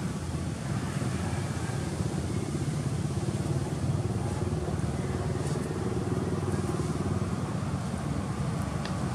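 Steady low motor rumble, like engine noise from vehicles.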